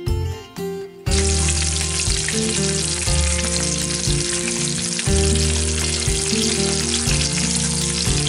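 Bacon strips sizzling in a griddle pan, a dense, even frying hiss that starts abruptly about a second in. Background guitar music runs underneath.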